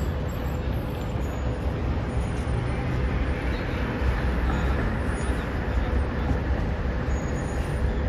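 Steady city street noise: a continuous low rumble of traffic with no single event standing out.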